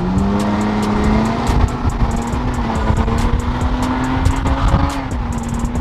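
2017 Nissan Maxima's 3.5-litre V6, straight-piped with muffler and resonator deleted, running loud under hard acceleration. Its note holds high and creeps slowly upward, then dips slightly near the end.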